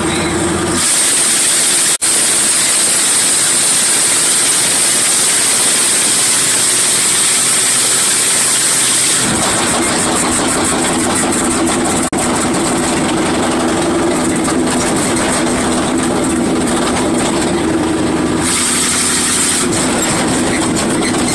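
Truck engine running, heard from inside the cab while driving. A loud steady hiss covers it from about a second in until roughly halfway, and again briefly near the end.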